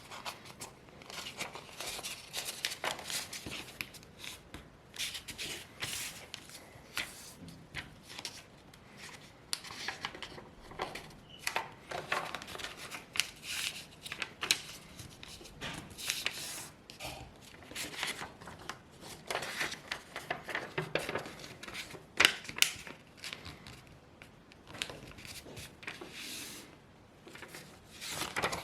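A sheet of A4 paper being folded and creased by hand: irregular rustling and crinkling with short, crisp crease strokes.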